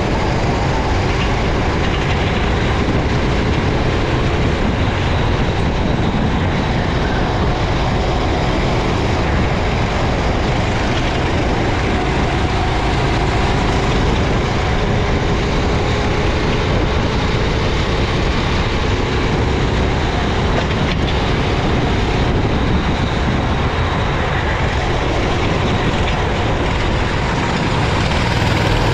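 Racing kart engine running hard from onboard, its pitch gliding slowly up and down under a constant rush of wind and road noise.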